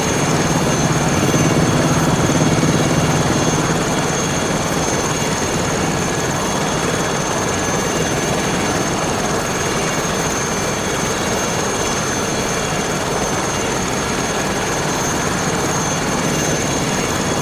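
Aérospatiale SA 315B Lama helicopter running steadily, its turboshaft and rotor giving a continuous noise with a steady high whine. It grows a little louder between about one and four seconds in.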